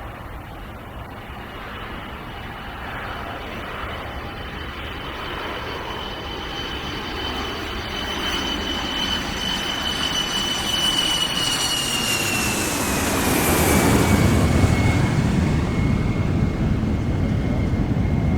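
Boeing 747's four turbofan engines in a flyover: the sound grows louder as the airliner approaches, with a high turbine whine that drops in pitch as it passes, about 13 seconds in. Deep engine noise follows at its loudest.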